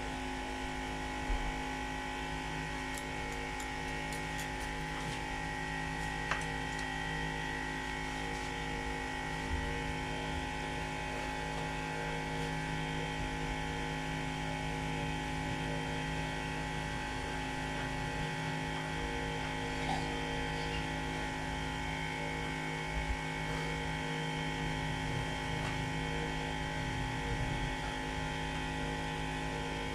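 Steady electrical hum made up of several constant tones, with a few faint light clicks now and then.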